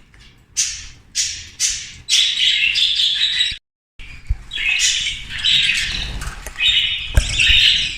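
Young budgerigars in a cage squawking and chirping, many harsh, scratchy calls overlapping in quick succession. The sound cuts out completely for a moment a little past the middle.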